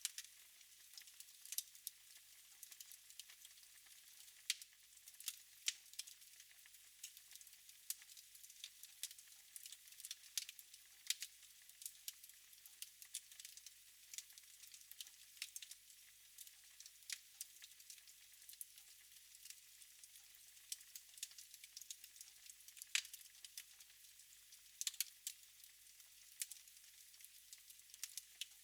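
Wood fire in a fireplace crackling quietly: irregular sharp pops and snaps, several a second, over a faint hiss.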